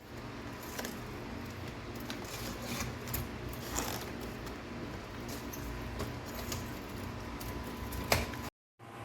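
Steady mechanical hum of a Black+Decker portable air conditioner running, with a faint held tone. Over it come a handful of sharp clicks and rattles, the loudest shortly before the sound cuts off near the end.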